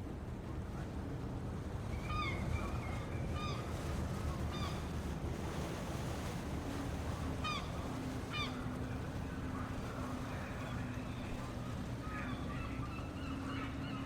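Large harbour ambience: a steady low rumble of water and distant activity, with short bird calls repeated about half a dozen times, and a steady low hum starting about halfway through.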